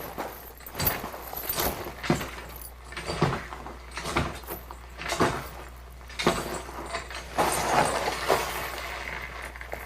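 Foley sound effects made with props: a run of irregular knocks, clicks and clattering, with a rougher scraping, rustling stretch from about seven and a half to eight and a half seconds in.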